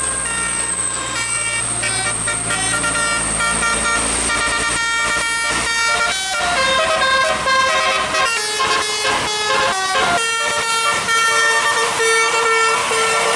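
Bus musical 'telolet' air horn playing a tune of quickly changing notes, over a low engine rumble that fades out about two-thirds of the way in.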